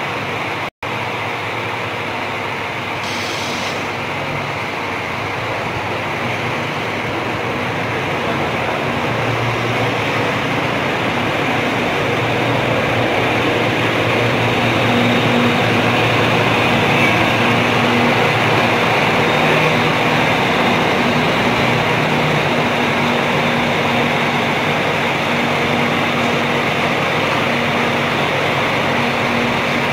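Volvo B11R double-decker bus's diesel engine running as the bus drives slowly past and away. The sound grows louder over the first half and then holds steady.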